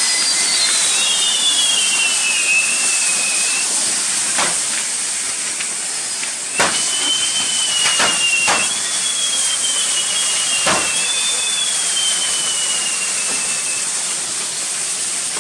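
Burning pyrotechnic figure: fountain fireworks give a steady, loud hiss, while whistling fireworks sound long high whistles that slowly fall in pitch, two together at the start and more from about six seconds in. Several sharp cracks go off among them.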